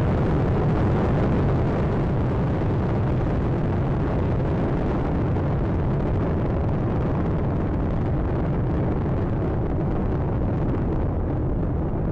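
Space Shuttle Atlantis's main engines and solid rocket boosters during ascent: a steady, deep rumble with a crackling edge.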